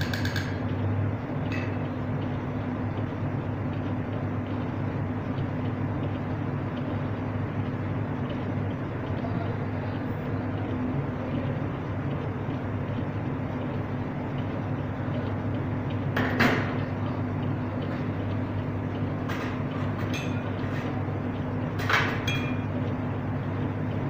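Steady low machine hum with a constant tone, with two brief sharp clinks about 16 and 22 seconds in.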